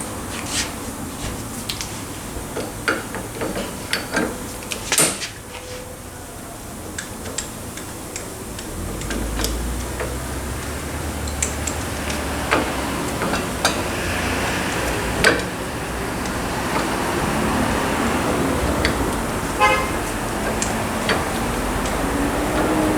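Hand tools and steel differential parts clinking and knocking in irregular, sharp clicks over a low workshop hum. About twenty seconds in there is a brief fast ratcheting rattle.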